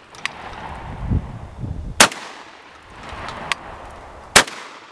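Two shots from a Beretta A300 Ultima Patrol semi-automatic 12-gauge shotgun, one about two seconds in and another just over two seconds later. These are the high-velocity shell and then the double-aught buckshot, following a target load fired just before.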